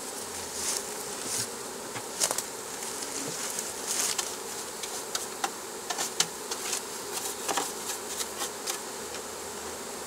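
Many honeybees buzzing steadily, with scattered sharp clicks and knocks over the hum.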